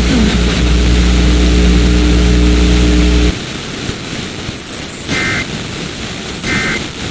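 Emergency Alert System end-of-message data bursts: two short, buzzy two-tone digital bursts about a second and a half apart over a radio hiss, marking the end of the test alert. Before them, a loud low hum with steady tones cuts off abruptly about three seconds in.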